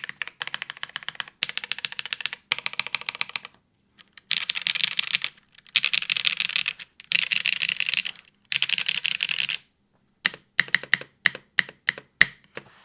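Typing on a custom tenkeyless mechanical keyboard with unlubed WINGTREE Nezuko switches (55 g bottom-out), GMK keycaps, an aluminium plate in a top-mount case and no foam. Quick runs of keystrokes about a second long alternate with short pauses, then slow single key presses come in the last few seconds.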